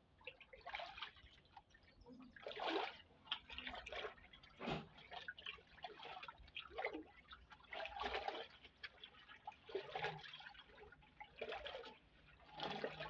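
A hand stirring water in a plastic drum, dissolving a powder into it: irregular sloshing and splashing swishes.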